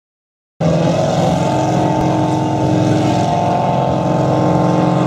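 Compact Diesel class pulling tractor's diesel engine running loud and steady, cutting in abruptly after about half a second of silence.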